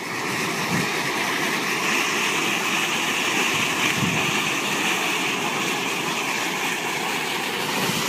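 Tiered water fountain splashing, a steady rush of falling water.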